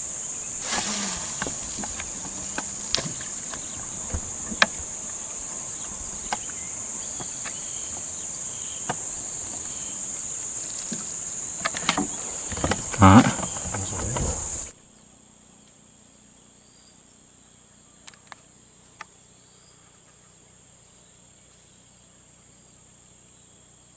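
Insects droning in a steady, high-pitched chorus, with scattered light clicks and knocks. About 15 seconds in the drone drops away abruptly, leaving a much fainter one with a couple of soft clicks.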